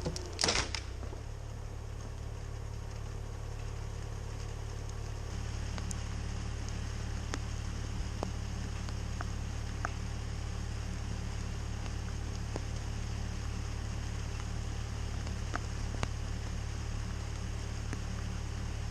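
Excavator engine running steadily with a low drone, a short burst of noise about half a second in and scattered light ticks over it.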